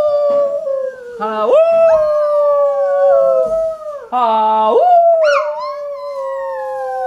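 Dog howling in a series of long howls, each sliding quickly up and then falling slowly. A second voice overlaps the howls, people howling along with the dog.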